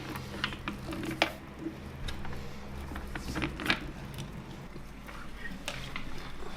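Gears of a restored vintage hand drill turning as it is cranked, with irregular clicks and ticks and a couple of sharper clicks.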